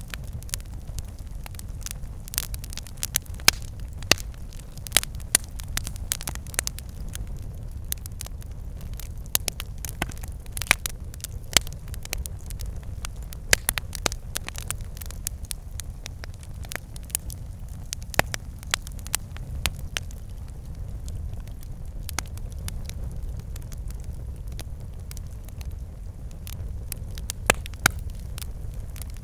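Campfire burning, with frequent irregular sharp crackles and pops over a steady low rumble of the flames.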